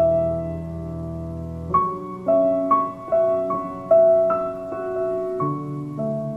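Soft solo piano music: a chord is held, then, just under two seconds in, single notes start and follow at roughly two or three a second in a slow melody.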